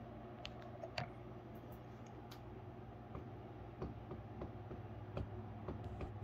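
Faint, irregular clicks and crackles, about two a second, the loudest about a second in, as a Goliath birdeater tarantula chews a chick's carcass, over a steady low hum.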